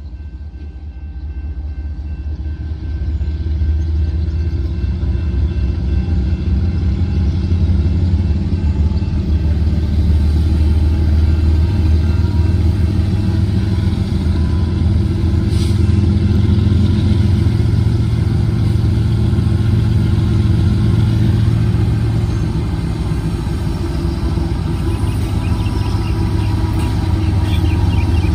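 Two diesel locomotives at the head of a gravel train rumble closer while approaching, with the engine sound building over the first few seconds and then holding steady and loud as they come near.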